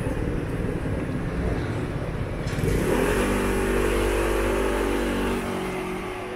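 Motor scooter engine pulling away: about two and a half seconds in it revs up, rising in pitch, then holds a steady note and fades as it moves off. Steady street traffic noise runs underneath.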